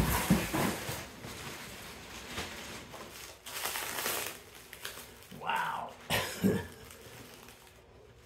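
Plastic bag and stretch wrap crinkling and rustling as a wrapped electric unicycle is handled, with a few knocks at the start.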